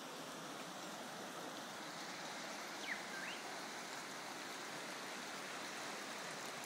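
Steady rush of flowing floodwater. A short high chirp about three seconds in.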